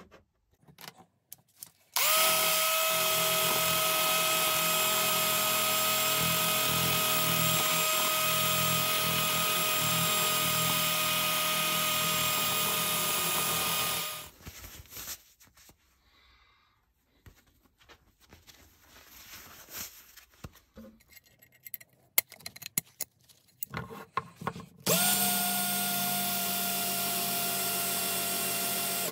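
An electric power tool's motor starts and runs at a steady speed with a constant whine for about twelve seconds, then stops. Scattered small clicks and scrapes of handling follow, and about 25 seconds in the tool starts up again and runs steadily.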